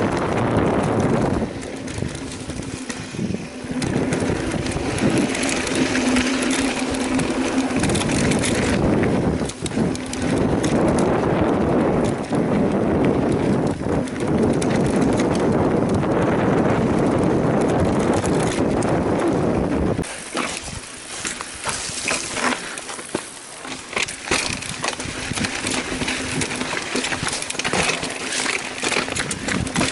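Mountain bike ridden down a trail: wind buffeting the microphone over the rattle of tyres and bike on rough ground. About twenty seconds in the wind drops and a dense clatter of clicks and knocks from the bike over the rough surface takes over.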